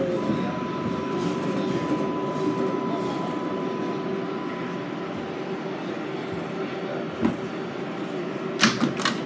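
New York City Subway R188 car braking to a stop at a station, heard from inside the car: steady rumbling running noise with a thin electric whine through the first half. A few sharp clacks come near the end as the doors open.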